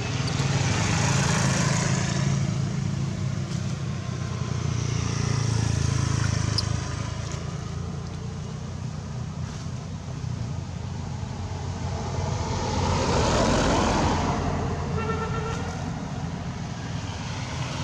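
Road traffic: vehicles passing by, the sound swelling up and fading away three times over a low engine rumble.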